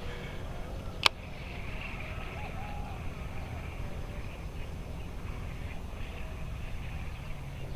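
Steady low wind rumble on the microphone, broken about a second in by one sharp click.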